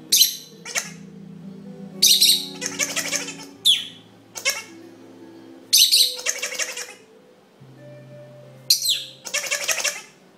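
Pet lovebird giving short, sharp, high chirps several times, three of them followed by a second or so of the Ha Ha Hammer toy's rapid recorded laughter as a reward.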